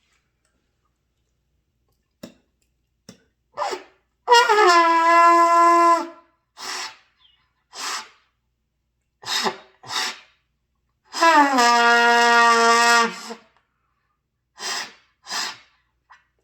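A beginner blowing two held trumpet notes of about two seconds each. Each note scoops down in pitch as it starts, and the second sits lower than the first. Short sharp breaths come between and after the notes.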